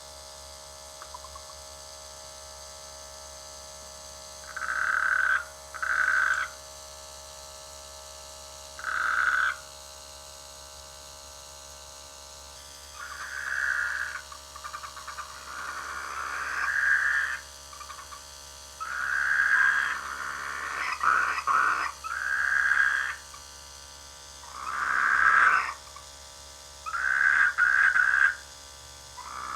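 Frogs croaking their rainy-season mating calls: separate calls about a second long, a few at first, then coming more often and overlapping from about halfway. A faint steady hum runs underneath.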